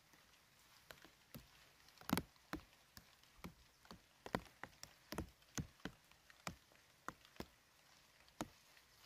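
Irregular sharp knocks and snaps, roughly two a second at uneven spacing, the loudest about two seconds in.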